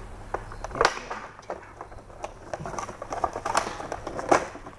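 Unboxing noises from a selfie-stick tripod's packaging: a string of irregular clicks, taps and rustles as it is handled and opened, the sharpest about a second in and near the end.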